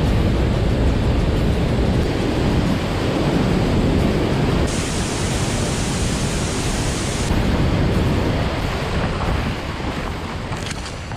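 Steady rushing wind noise buffeting the microphone on open water, dying away near the end.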